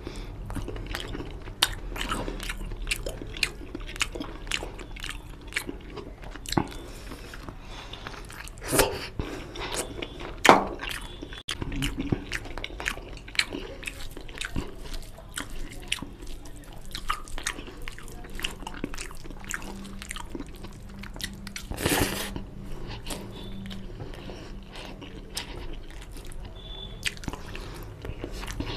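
Close-miked eating of mutton curry and rice by hand: chewing and biting of mutton on the bone, with many sharp, wet mouth clicks and smacks throughout.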